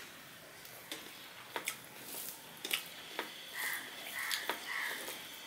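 Fingers mixing rice and red amaranth fry on a steel plate, with soft wet squishing and scattered sharp clicks of fingers and food against the metal, along with mouth sounds of eating. Three short calls sound in the background in the last two seconds.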